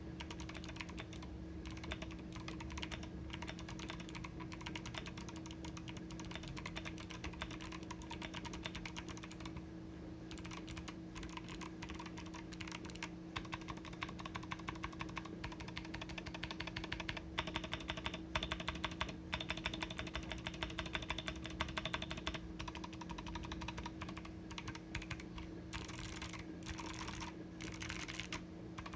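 Continuous typing on an Akko Mod007 mechanical keyboard with lubed Kailh Box Navy clicky switches: a dense stream of sharp key clicks, fastest and loudest in the middle, over a steady low hum.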